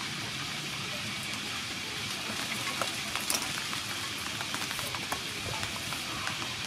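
A steady hiss, with a scatter of light clicks and scrapes in the middle as a cucumber is handled and peeled with a hand vegetable peeler.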